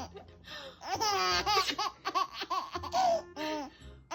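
A baby laughing in a run of short, high-pitched bursts, set off by a mock sneeze.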